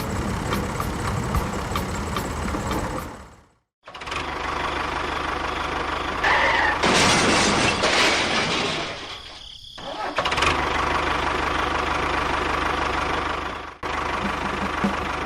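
A small motor or engine running steadily, in several short stretches broken by abrupt cuts, with a louder, noisier stretch about halfway through.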